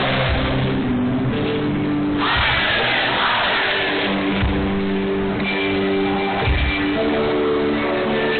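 Live rock band playing a song in a large arena hall: amplified guitars and band sound, loud and dense throughout.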